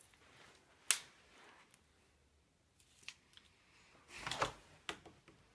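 Scattered handling and movement noises: a sharp click about a second in, a few faint clicks, then a short rustle with small clatters near the end.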